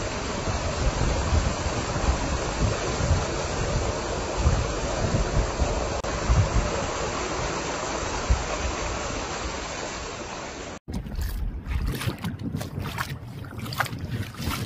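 Car tyre ploughing through standing floodwater: a steady hiss of spray with wind rumbling on the microphone. About eleven seconds in it cuts off abruptly to quieter, gusty wind noise on the microphone.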